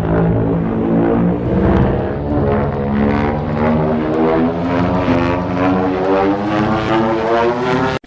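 Monster sound effect made for a Godzilla: a low, rapidly pulsing drone of several tones whose pitch slowly rises over the last few seconds, cutting off suddenly at the end.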